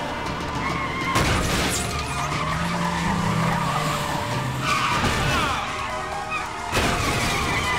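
Car engine running hard with tyres squealing, including one falling squeal about five seconds in, and sudden louder surges about a second in and again near the end.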